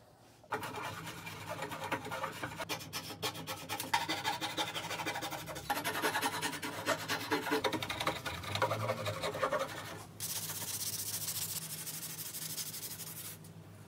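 Flush-cut hand saw cutting protruding wooden dowels flush with a solid-wood panel in quick back-and-forth strokes. About ten seconds in, this gives way to a steady hiss of sandpaper rubbing the trimmed dowel ends smooth.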